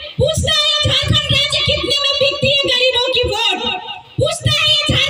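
A woman's voice speaking forcefully through a loudspeaker system, with only a brief pause about four seconds in.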